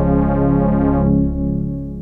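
Oberheim Matrix 12 analog synthesizer holding a thick, slowly pulsing pad chord with a deep bass note. About a second in, the brighter upper tones drop away as the key is let go, and the chord starts to fade out.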